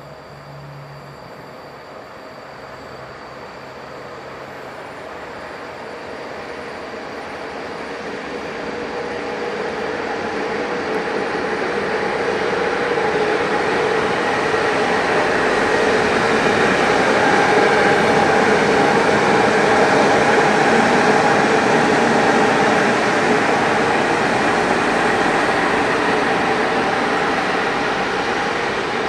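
Electric locomotive hauling passenger coaches along a station platform. The rumble of its wheels on the rails and a steady hum grow louder over about fifteen seconds, then hold near the peak as the locomotive passes close by.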